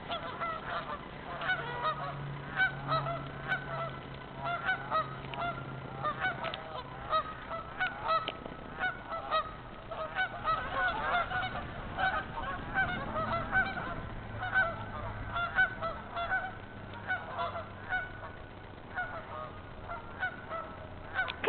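A flock of geese honking, many short calls overlapping and repeating irregularly throughout.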